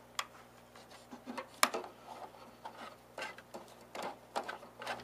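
Scattered light clicks and taps as a replacement control panel is handled and fitted into a home coffee roaster's metal casing, the sharpest click about one and a half seconds in.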